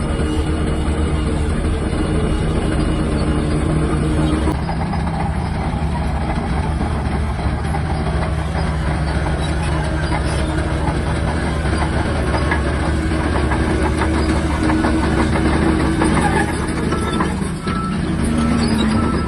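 Shantui DH17-C3 bulldozer's diesel engine running steadily under load, its note changing about four and a half seconds in, with light metallic clatter from the machine.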